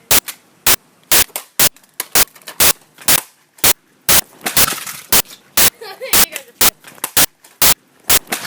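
Sharp, hard knocks repeating steadily about two a second as a toy car is smashed apart.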